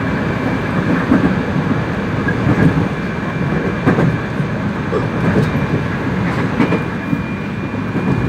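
Korail Line 4 electric commuter train running on the line, with a steady rumble of wheels on rail, a few scattered clicks from rail joints and a faint steady high whine.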